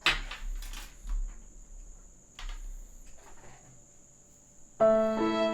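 A few short noisy sounds in the first three seconds, the first the loudest. About five seconds in, music with long held violin notes starts suddenly.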